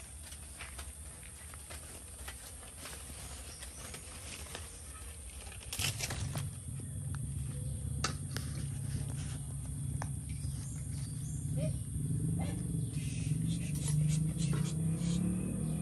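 Scattered clicks and knocks of metal pots and utensils being handled. About six seconds in a steady low rumble starts and grows gradually louder.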